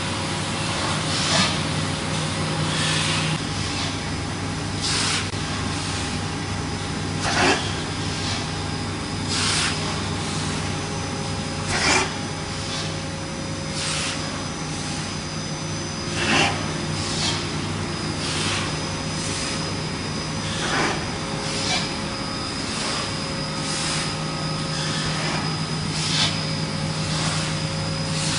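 Pulp molding tray production line running: a steady machine hum with short, sharp hisses every one to three seconds.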